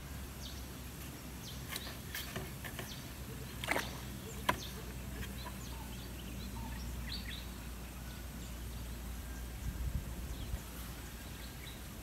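Quiet outdoor ambience: a steady low hum with faint short bird chirps and a few sharp clicks, the loudest two coming around four seconds in.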